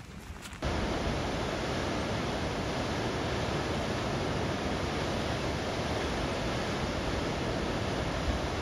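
Steady rushing of a waterfall plunging into a rocky gorge, cutting in suddenly less than a second in. Before it, a few faint footsteps on a stony trail.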